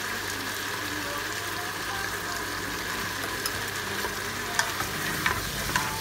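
Potato wedges and minced pork sizzling in a nonstick pot with a steady hiss, while a spatula stirs them; from about halfway through, the spatula knocks and scrapes against the pot a few times.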